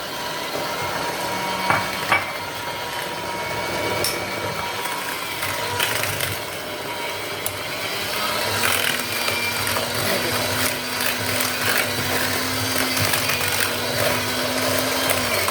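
Electric hand mixer beating butter, sugar and egg into cake batter, its motor whirring steadily with scattered clicks. The motor note rises about halfway through and falls away as it is switched off near the end.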